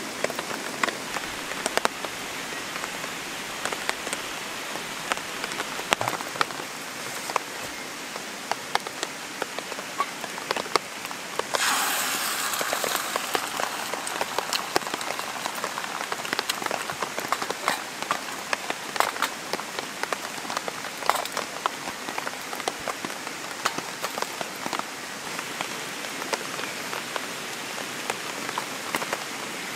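Steady rain pattering, with many small drop ticks. About twelve seconds in comes a brief louder hiss, beaten egg sizzling as it hits hot oil in a wrought-iron frying pan.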